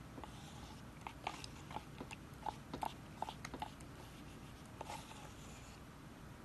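Wooden stick stirring thick, sticky glue-and-starch slime in a plastic cup: faint, irregular wet clicks and squelches, a few a second, as the stick drags the slime and knocks the cup wall.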